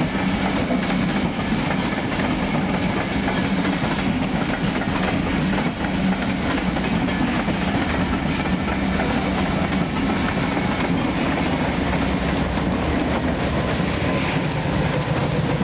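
A long string of diesel freight locomotives passing close by: a steady drone of the engines mixed with the rumble and clatter of wheels on the rails.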